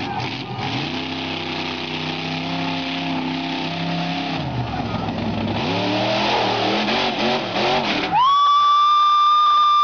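Big-tyred 4x4 buggy's engine holding steady revs, then revving up and down as it hits the dirt ramp and flips over backwards. Near the end a loud, steady high-pitched tone cuts in for about two seconds.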